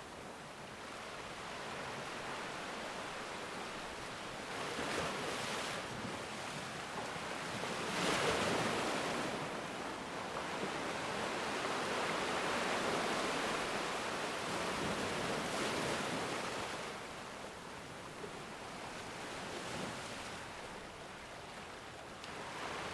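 Sea waves breaking and washing on a shore, a continuous rush of surf that swells and ebbs every few seconds, loudest about eight seconds in.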